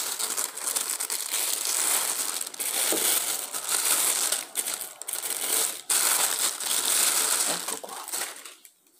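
Thin clear plastic bag crinkling and rustling as a headset is worked out of it by hand, a dense crackle that dies away shortly before the end.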